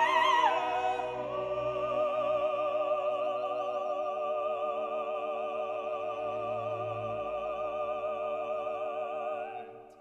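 Classical background music: a long held note with wide vibrato, in an operatic style, over sustained chords. It fades out just before the end.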